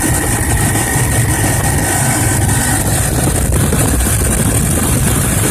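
2000 Lincoln Navigator's 5.4-litre V8 idling, with the air-suspension compressor running as the vehicle raises. Under the engine noise is a light chirp that the owner suspects comes from a bad belt tensioner or idler pulley.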